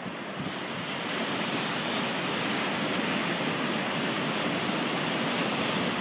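Ocean surf breaking and washing up a sandy beach: a steady rushing wash that swells over the first second or so and then holds.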